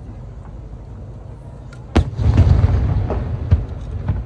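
Fireworks display: an aerial shell bursts with a sharp boom about two seconds in, followed by a rolling rumble, with two more sharp bangs near the end.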